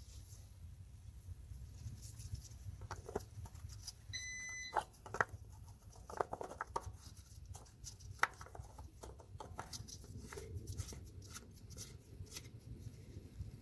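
Faint scattered clicks and light knocks of a car engine's oil filler cap being screwed back on by hand, with one short, high electronic beep about four seconds in.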